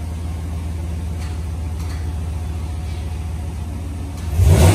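2020 Ram 1500 pickup on its stock factory exhaust, idling with a steady low hum, then revved sharply near the end.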